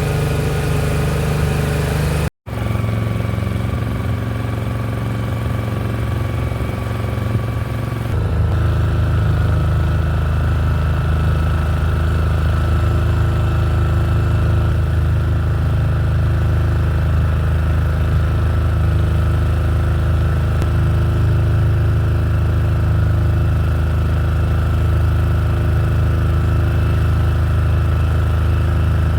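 Small river boat's engine running steadily under way, a loud, even drone. It cuts out briefly about two seconds in, and its note changes at about eight seconds.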